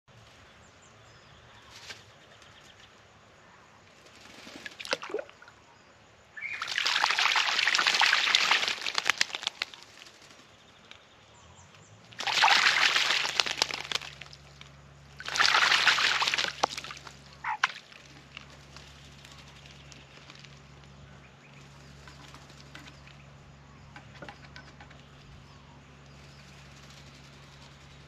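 Australian magpie bathing in a birdbath, splashing water with its wings in three loud bouts of a few seconds each, with a few small splashes between them.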